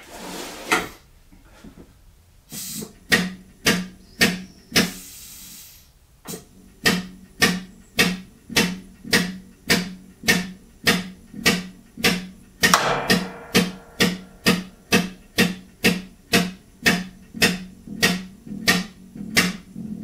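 Hydraulic pump of a torque-test rig worked in regular strokes, about two a second, each a sharp clack with a low note, as pressure builds and the load on the wrench's box end climbs toward breaking. A short hiss comes in the middle of the pumping.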